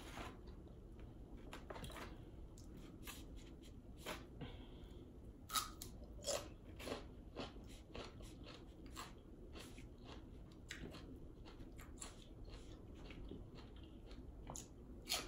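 Close-miked chewing and crunching on Zaxby's chicken wings: many short, sharp crunches at irregular intervals, a couple of them louder, over quiet mouth sounds.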